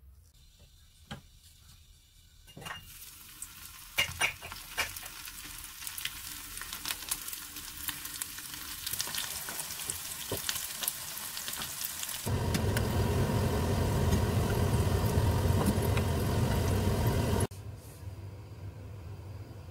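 Almond-crumb-coated chicken balls deep-frying in hot oil, sizzling with scattered pops. About twelve seconds in the sizzle becomes much louder and fuller, then cuts off suddenly near the end.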